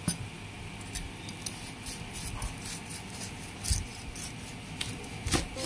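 Irregular light clicks and taps of kitchen utensils on hard surfaces, with a duller knock a little past the middle and another near the end.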